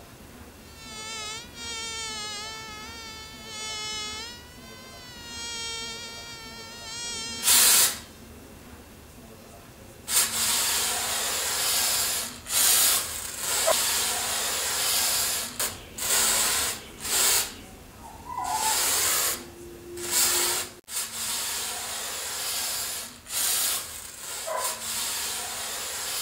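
A flying insect buzzing in several short passes, its pitch wavering. Then an aerosol spray can hisses: one short blast, and from about ten seconds in a run of spray bursts of varying length.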